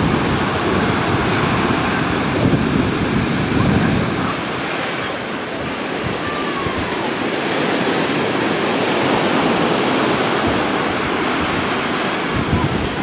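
Ocean surf breaking and washing up a sandy beach in a steady rushing wash, with gusts of wind buffeting the microphone, heaviest in the first few seconds and again near the end.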